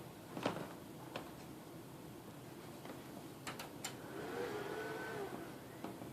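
Faint clicks and knocks of hands handling a computer and cabinet while a USB receiver is plugged in, with a few sharp clicks in a quick cluster past the middle, followed by a soft tone that bends in pitch for about a second.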